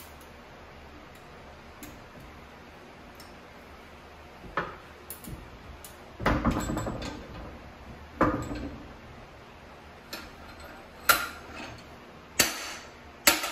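Metal knocks and clinks from a bench vise and pipe-coupling doming press as the vise is worked and the steel parts are handled. There are a few separate knocks and a longer rough rattle midway, then several sharp, bright clinks near the end as the parts are taken out.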